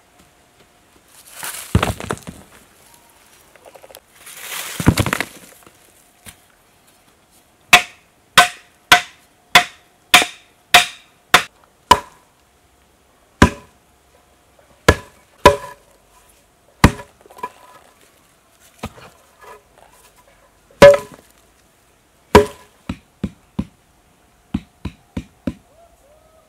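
Loose soil pouring and sliding twice, about two seconds apart, then a run of sharp strikes of a hand tool into hard, dry earth, steady at about one and a half a second before turning uneven, with a few lighter quick knocks near the end.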